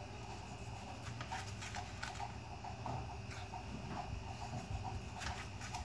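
Kitchen knife slicing a tomato into rounds, the blade knocking against a metal serving tray with each cut in a series of faint, irregular taps.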